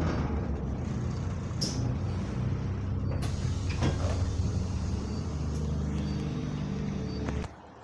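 Diesel engine of a stationary single-deck bus idling, heard from inside the saloon as a steady low hum with a few short knocks. Near the end the sound drops away abruptly to a faint hum.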